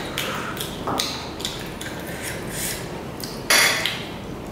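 Close-up eating sounds of two people chewing and sucking meat off chicken pieces: a series of short mouth noises, the loudest about three and a half seconds in.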